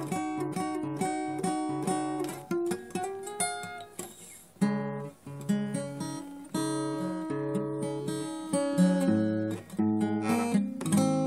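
Acoustic guitar music: chords and single notes plucked and strummed in a steady run, dipping quieter for a moment about four seconds in.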